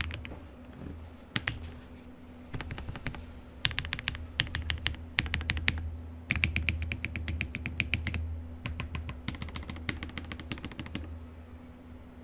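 Zoom65 V3 custom mechanical keyboard, with lubed KTT Kang White switches on a polycarbonate plate with Poron foam, being typed on in quick bursts of keystrokes with short pauses between. The typing stops about a second before the end, leaving a steady low hum.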